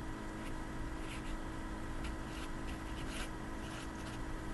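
Felt-tip marker scratching on paper as a word is written, a series of short faint strokes over a steady low hum.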